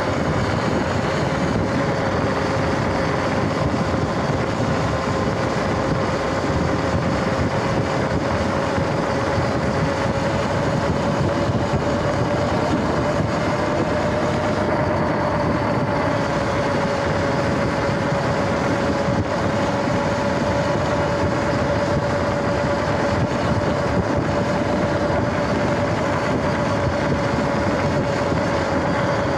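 Sur-Ron X electric dirt bike riding at steady speed on pavement: a steady whine from the motor and drive, rising a little in pitch partway through, over a constant rush of wind and tyre noise.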